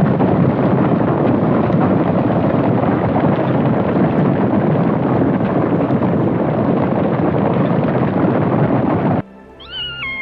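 Flock of sheep: a loud, dense wash of many animals' sound that cuts off suddenly near the end. A cat then meows once, its pitch stepping down.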